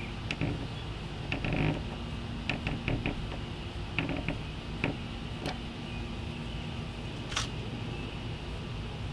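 Small clicks and creaks of a screw being turned down to lock a plastic side fin into a stand-up paddle board's fin box, scattered over the first few seconds, with one sharper click later on.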